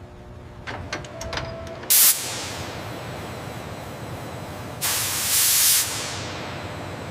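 Compressed air hissing in two blasts, a short one about two seconds in and a longer one of about a second near five seconds in, over a steady background hiss. A few light clicks come before the first blast.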